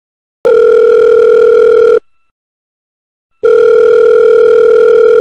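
Telephone ringback tone of an outgoing call ringing out: two long, steady beeps, each about a second and a half, with a pause of about the same length between them.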